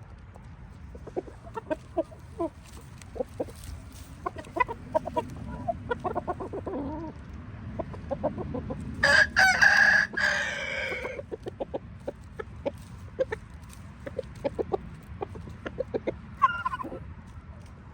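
Chickens clucking in short, repeated notes. About nine seconds in, a loud crow lasting about two seconds falls in pitch at its end.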